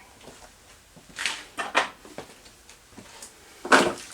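A few short knocks and scrapes of tools and metal parts being handled at the workbench, three separate bursts with the loudest near the end.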